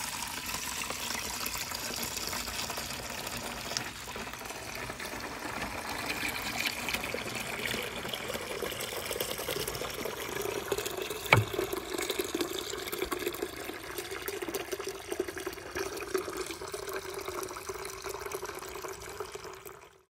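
Dirty wax-stripping water pouring in a steady stream from a drain hose into a plastic bucket, splashing and foaming as the bucket fills. One sharp knock about halfway through. It cuts off suddenly near the end.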